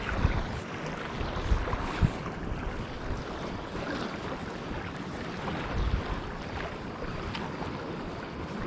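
Wind buffeting the microphone over a steady wash of harbour water, with a few short low thumps of gusts, about four in the first six seconds.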